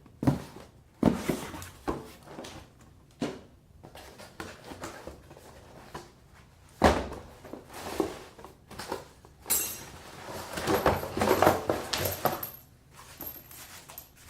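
A new faucet's box and packaging being opened and its parts handled: scattered knocks and thumps, then a denser stretch of rustling and clatter about ten seconds in.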